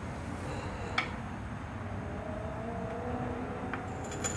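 Hydraulic floor jack being lowered: faint steady noise, with a sharp click about a second in and a lighter click near the end.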